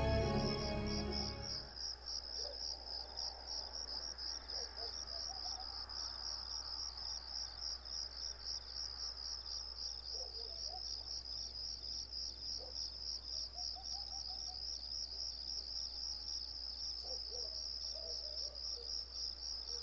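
Crickets chirping in a steady, fast pulsing trill, with a few faint short chirps beneath it. A music cue fades out in the first two seconds.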